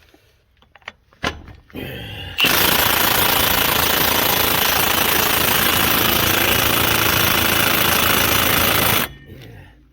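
Milwaukee Fuel cordless impact wrench hammering on a front hub bolt through a socket extension, running continuously for about six and a half seconds and then stopping abruptly. It does not break the bolt loose: on its low setting, with the extension soaking up its blows.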